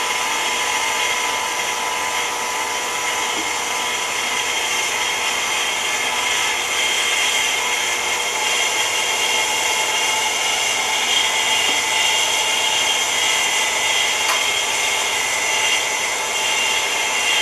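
KitchenAid stand mixer motor running steadily with a steady whine, driving a Chef's Choice 796 metal food grinder attachment as pieces of bread are fed through to push out leftover ground meat.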